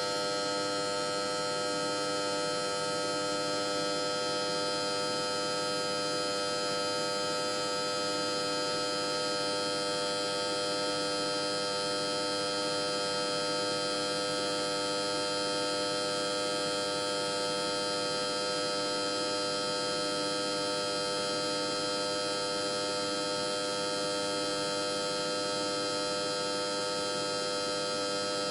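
Electric power transformer humming: a steady, buzzing electrical hum with many overtones, holding the same pitch and level throughout.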